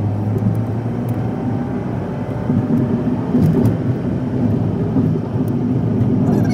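Car driving along a road, its engine and tyres making a steady low rumble with a faint rising tone in the first few seconds.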